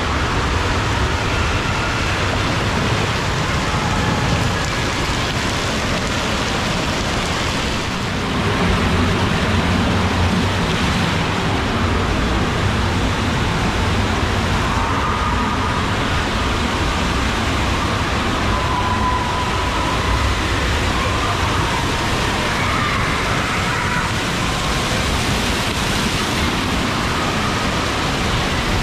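Water rushing along an open water slide flume as a rider slides down it, a steady loud wash of water noise.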